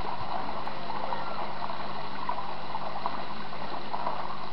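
Steady rushing, water-like noise that holds an even level throughout.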